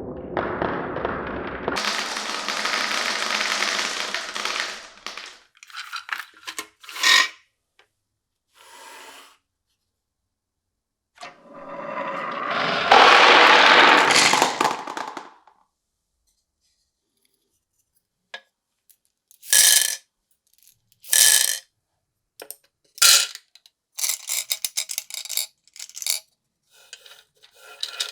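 Glass marbles running through a wooden marble run: a long rolling rumble at the start and again about halfway through, with sharp clicks and clacks of marbles dropping onto and striking wooden pieces in between and toward the end.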